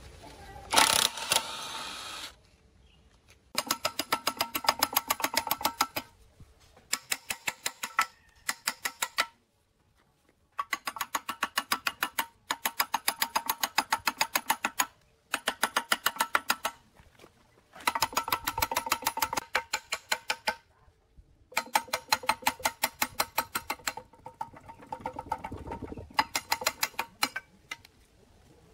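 Cordless impact driver hammering in repeated bursts of two to three seconds, with short pauses between, as it loosens the nuts on a machine's bearing housing.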